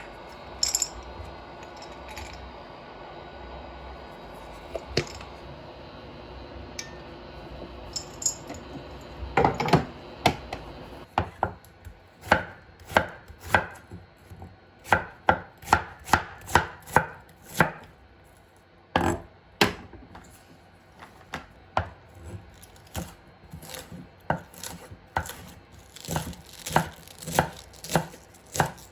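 Knife chopping food on a cutting board: a few scattered cuts at first, then from about ten seconds in a long run of quick, irregular chops.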